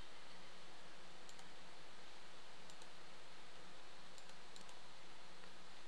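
A few faint computer mouse clicks over a steady microphone hiss.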